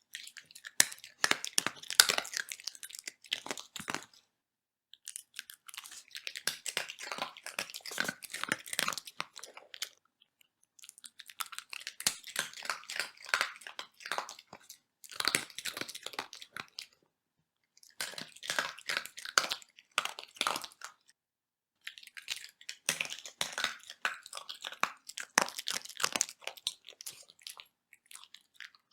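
A dog crunching and chewing hard dog biscuits, in bouts of rapid crackling bites of a few seconds each with brief pauses between them.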